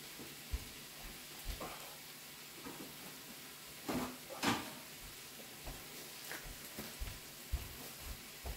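Scattered light knocks and bumps of things being handled, the loudest two about four and four and a half seconds in, over a faint steady hiss.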